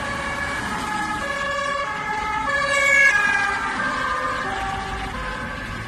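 Two-tone ambulance siren switching between a high and a low note, growing louder until about three seconds in and then fading.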